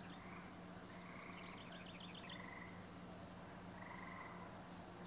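Faint animal calls in the background: repeated short high chirps, falling in pitch and coming irregularly about once or twice a second, with some lower quick trills, over a faint steady hum.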